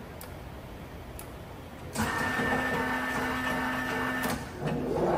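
A 1987 LeBlond Makino Regal engine lathe's headstock drive starts up about two seconds in with a sudden, steady mechanical whine. It drops off briefly a little past four seconds, then starts again, rising in pitch as the spindle runs up to a new speed.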